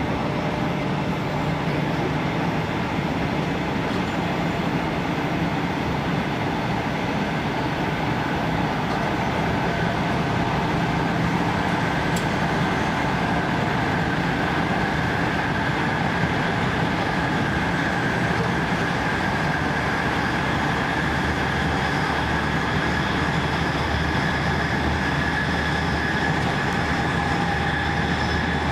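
A train running at high speed, heard from the gap between two coupled rail vehicles: steady rumble and rush of wheels on rail and air. A thin high whine grows stronger and creeps slightly higher from about ten seconds in.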